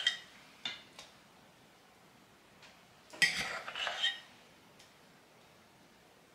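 Metal spoon clinking and scraping while mashed potatoes are spooned and spread over a casserole in a foil pan: a few light taps in the first second, then a louder run of scrapes and clinks about three to four seconds in.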